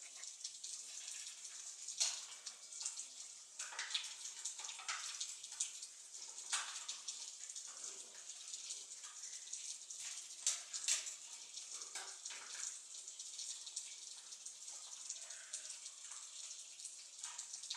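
Keeshond puppies wrestling: many short scuffles, scrapes and clicks of paws and claws on the floor, over a steady background hiss.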